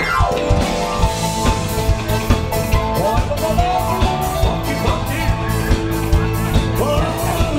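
Live band playing upbeat rock-style party music: drum kit keeping a steady beat, with guitar and a singer over it.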